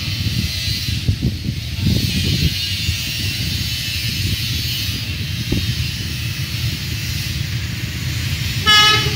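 Diesel locomotive approaching with a steady low rumble, then one short, loud blast of its horn near the end.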